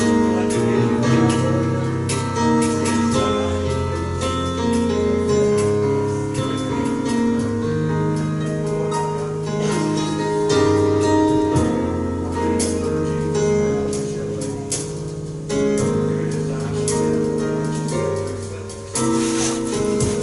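Instrumental music with held chords over a slowly moving bass line.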